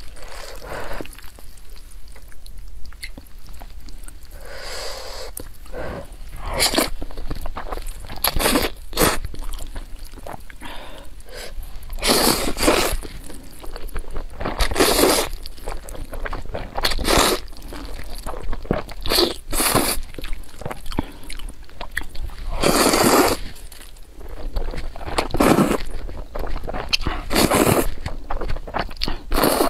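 Close-miked eating of thick saucy noodles: a person slurps mouthfuls of noodles in repeated loud wet bursts every two to three seconds, with chewing in between.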